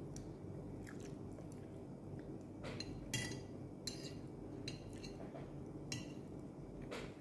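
A person chewing and eating with their fingers: soft wet mouth sounds with short smacks and clicks about once a second, over a low steady hum.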